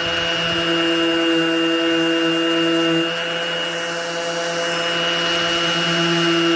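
Cordless 20-volt Craftsman DA (random orbital) sander running steadily as it sands crusty rust off a car hood, its drone shifting a little about halfway through.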